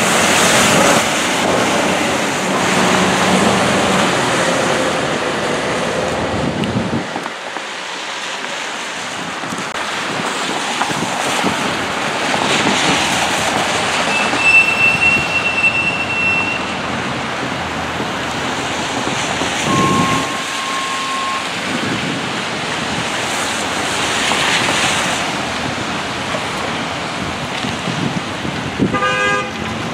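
Traffic on a rain-wet street: tyres hissing on the wet road as cars and hybrid-electric city buses pass, swelling and fading with each vehicle. Brief steady tones sound twice around the middle and once near the end.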